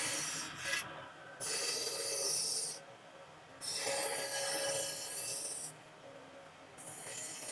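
Long rasping strokes of a hand tool on wood, about four in all, each lasting one to two seconds with short pauses between.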